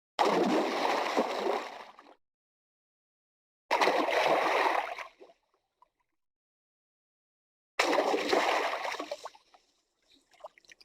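Water splashing and sloshing in three separate bursts, each starting suddenly and dying away over a second or two. A few small drips follow the last one near the end.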